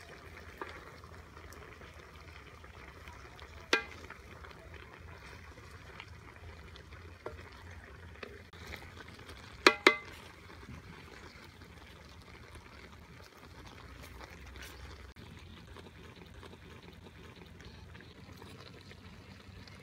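Cassava curry simmering in a metal wok, a steady bubbling hiss as it is stirred. A sharp metallic clink rings out about four seconds in and two more come close together near the middle, the stirring utensil striking the wok.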